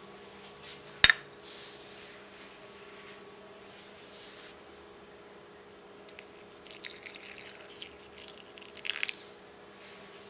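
Hands-on kitchen preparation at the sink: a sharp click about a second in, then short spells of dripping and splashing water and a few crackly handling noises near the end, over a faint steady hum.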